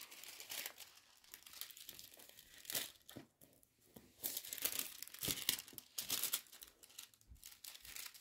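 Thin metallic transfer foil crinkling and rustling in irregular bursts as it is pressed onto the sticky card and peeled away, faint at first and busier from about four seconds in.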